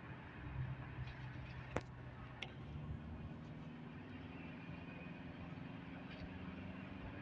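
Steady engine and road noise of a moving car, heard from inside the cabin, with two short clicks about half a second apart near 2 s in.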